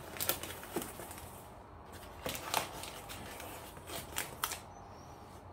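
Pink tissue paper crinkling and a cardboard box's flaps being folded and pressed down by hand. The crisp rustles and scrapes come in short spells near the start, about halfway through, and again about four seconds in.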